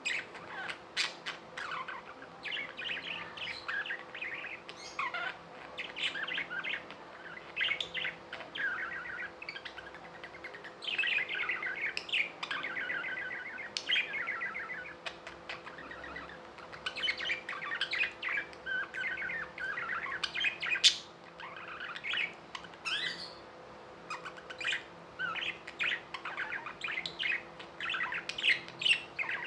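Budgerigars chirping and warbling in quick, continuous chatter.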